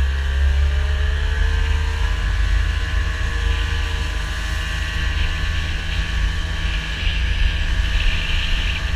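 A vehicle engine running steadily under way, its pitch shifting slightly in the first couple of seconds, over a heavy low rumble of wind on the microphone.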